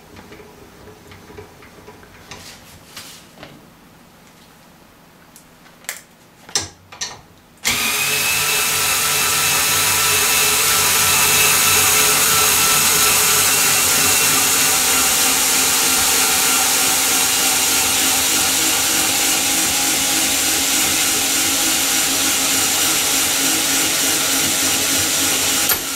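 Bosch cordless screwdriver starting about eight seconds in and running steadily until just before the end, driving the spring compressor's threaded rod to unwind it and release the mainspring of a Feinwerkbau Sport air rifle. A few light knocks come just before it starts.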